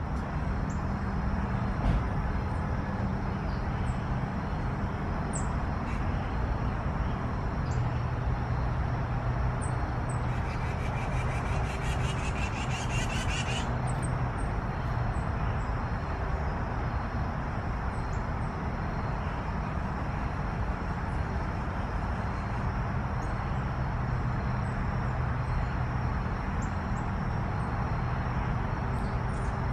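Steady outdoor background noise, a low rumble and hum like distant traffic, with faint short bird chirps here and there. From about ten and a half seconds in, a rapid high buzzing trill runs for about three seconds and then stops.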